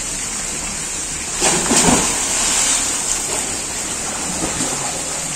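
Steady hiss of running water, swelling briefly about one and a half seconds in.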